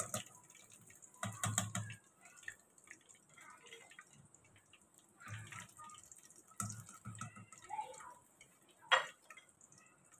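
A wire spider skimmer scraping and tapping against an iron kadhai as fried chicken wontons are lifted out of the oil, with oil dripping back into the pan. The clatter comes in short spells a second or two apart, with one sharp tap near the end.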